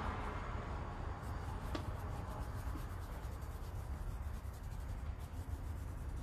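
Paintbrush stroking fabric paint onto a denim jacket: faint, repeated brush strokes over a steady low hum, with a single click about two seconds in.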